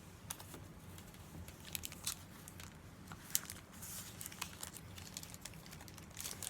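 Pokémon trading cards and their foil booster pack being handled: faint crinkles and a scatter of small sharp clicks as the cards are pulled out and sorted.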